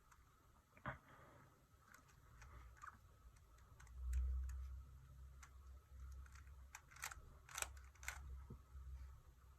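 Faint plastic clicks of a Rubik's cube being turned by hand, a single click about a second in and a quick run of clicks near the end, with a low rumble of handling noise about four seconds in.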